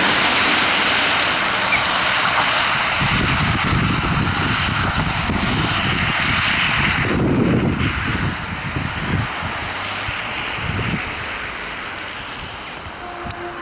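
Road traffic on a rain-wet road, tyres hissing on the asphalt, with wind gusting on the microphone; the noise slowly fades toward the end.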